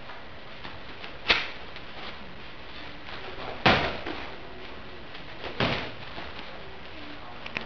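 Three sharp thuds of contact in a taekwon-do sparring bout: one about a second in, a louder one halfway with a short echo, and another a couple of seconds later.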